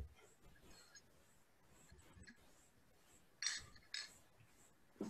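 Near silence, then two brief clinks from a drinking glass being handled, about three and a half and four seconds in.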